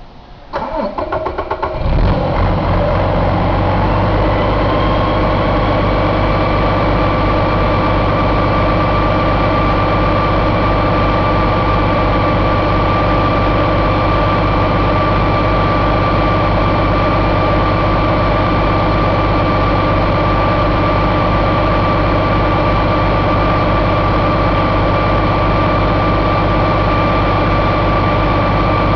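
Paccar MX13 inline-six diesel engine cranked by its starter, catching about two seconds in and then idling steadily. A high whine rises over the next few seconds and then holds a steady pitch above the engine note.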